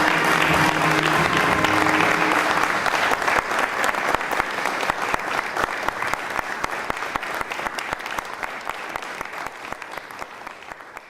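Theatre audience applauding, over the last notes of music that stop about two seconds in; the applause then gradually fades away.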